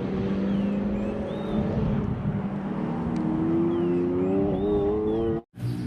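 A car engine running, its pitch rising steadily through the second half as it revs up. It cuts off abruptly near the end.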